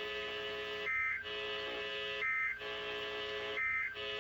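EAS end-of-message data tones: three short, buzzy digital bursts about a second and a half apart, signalling the end of the alert. Between them a steady receiver hum carries on.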